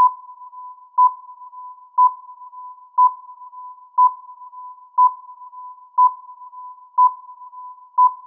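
Countdown timer beeping once a second: short, high, single-pitched electronic beeps over a much fainter steady tone at the same pitch.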